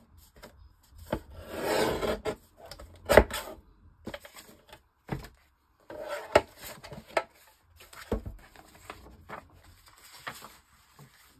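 Paper sheets being handled and folded on a tabletop: rustling and rubbing, with scattered taps and knocks, the loudest a sharp knock a little after three seconds in.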